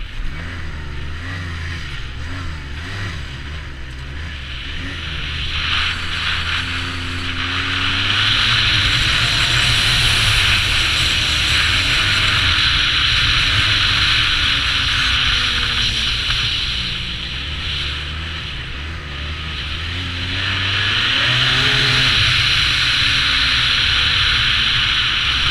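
2009 Arctic Cat Z1 Turbo snowmobile's 1,056 cc turbocharged four-stroke engine running under way, rising in pitch as it accelerates about six seconds in and again about twenty seconds in. A loud rushing noise comes in while it is at speed.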